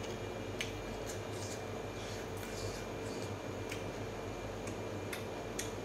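Eating sounds: a few short soft clicks from chewing and from fingers working rice on a steel plate, over a steady low hum.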